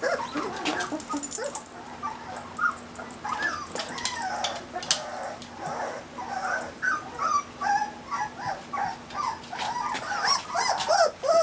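Dogs, a Dalmatian puppy and beagles, whining and yipping in many short, wavering high cries, one after another. A steady fan hum runs underneath and stops near the end.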